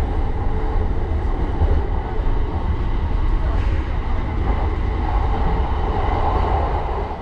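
Train running with a steady low rumble and a faint steady whine over it.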